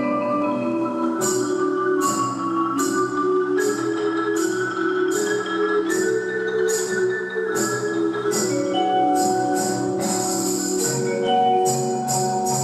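Percussion ensemble playing: sustained mallet-percussion notes and chords, with a bright struck accent repeating about every three-quarters of a second that stops near the end.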